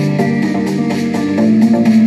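Psytrance dance music mixed live on a DJ controller: a fast rolling bassline of quickly changing notes under an even, driving percussion beat.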